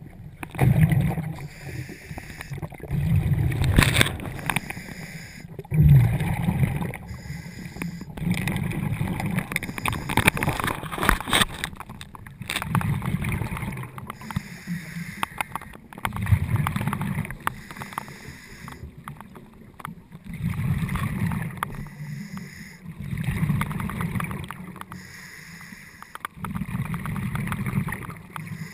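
Scuba diver's breathing heard underwater through a sealed camera housing: low rumbling swells of regulator bubbles every few seconds, with scattered crackles.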